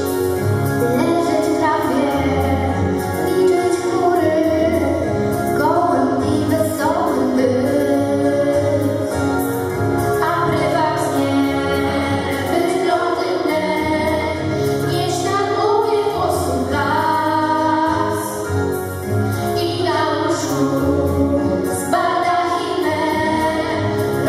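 Two girls singing into handheld microphones, amplified over instrumental music with a steady low beat.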